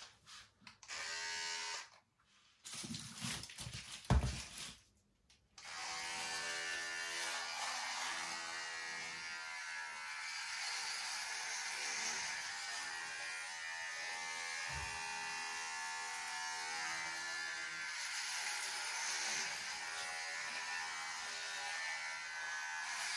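Electric hair clippers buzzing steadily while cutting hair on the head. Before that there are a few short bursts of sound and a sharp knock in the first five seconds, and the steady buzz starts about five and a half seconds in.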